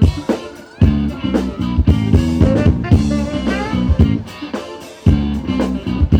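Live band playing an instrumental passage: a lead guitar bending notes over bass guitar and drums, the groove dropping out briefly twice.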